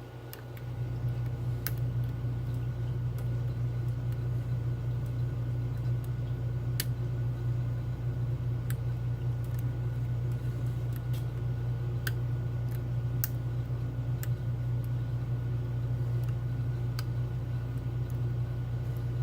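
Scattered small sharp clicks of lock-picking tools working the pins of a Medeco Keymark lock, a few at a time over a steady low hum.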